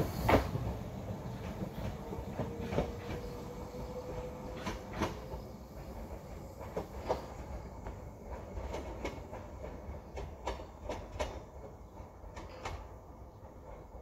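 Choshi Electric Railway railcar pulling away, its wheels clicking over the rail joints above a low rumble that fades as it recedes. A faint whine rises slowly in pitch over the first few seconds.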